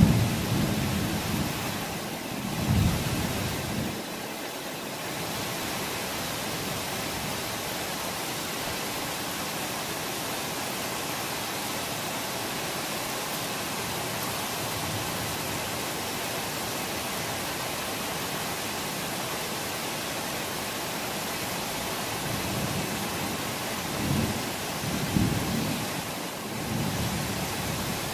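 Steady heavy rain hissing throughout, with low rolls of thunder rumbling at the start and again near the end.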